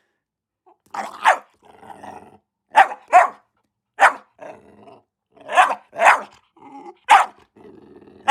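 Young female dog barking repeatedly, about eight barks, several coming in quick pairs, with low growling between them.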